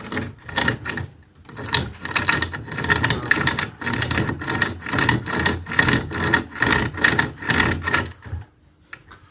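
SOG pocket chainsaw, a hand-pulled chain with two handles, sawing back and forth through a wooden 4x4 in quick rasping strokes, about two to three a second, stopping shortly before the end.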